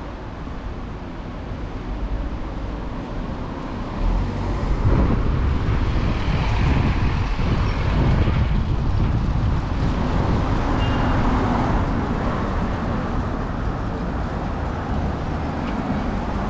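Road traffic: a motor vehicle passes close. Its engine and tyre noise swells about four seconds in, then slowly fades.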